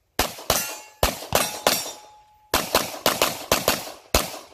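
Pistol shots fired in quick succession: a string of about five shots, a short pause, then about eight more fast shots.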